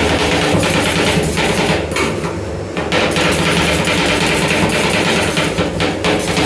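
Metal spatula chopping and scraping green apple into ice-cream base on a frozen stainless-steel cold plate: rapid repeated clanking taps, easing briefly about two seconds in. A steady low hum runs underneath.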